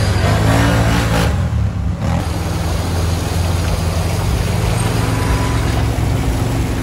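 ATV engine running steadily with a low drone, mixed with broad noise.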